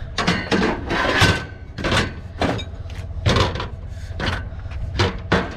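Pieces of scrap metal being handled and loaded: a series of about ten sharp metal clanks and knocks, several leaving a brief metallic ring.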